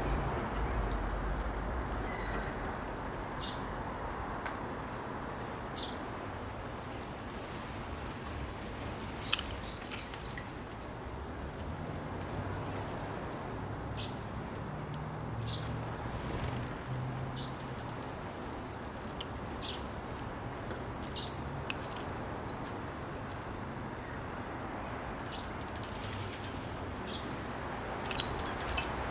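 Small backyard birds giving short, high chip calls, scattered singly every few seconds over steady background noise. A couple of sharp clicks come about nine and ten seconds in.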